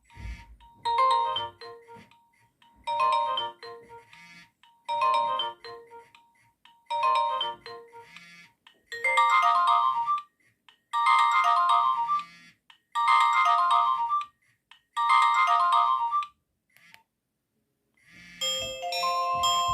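Nokia 1110i mobile phone playing a built-in ringtone through its small speaker: a short phrase of notes repeated about every two seconds, shifting higher partway through, then stopping. After a pause of about two seconds, a different tone starts near the end.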